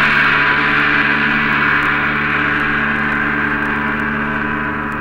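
A struck gong ringing out, a long dense tone slowly fading.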